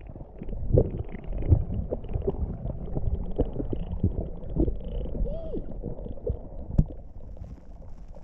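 Muffled underwater sound as heard by a submerged action camera: a low rumble of moving water with scattered pops and knocks from swimmers and bubbles, and a sharper knock near the seventh second.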